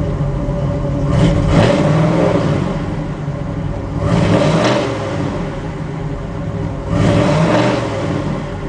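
1970 Chevrolet El Camino SS's 454 LS5 big-block V8 idling and revved in three short blips about three seconds apart, the revs rising past 3,000 rpm and falling back to idle each time.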